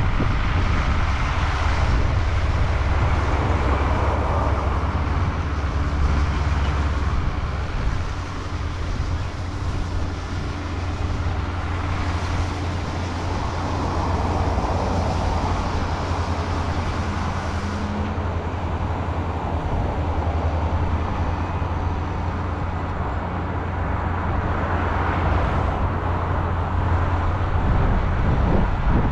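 Heavy farm machinery running steadily: a constant low engine drone with a rushing noise over it.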